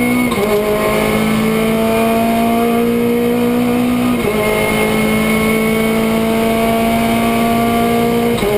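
Renault Clio Cup race car's engine, heard from inside the stripped cabin, pulling hard with the revs climbing steadily. Three gear changes come about four seconds apart, and the pitch drops sharply at each before climbing again.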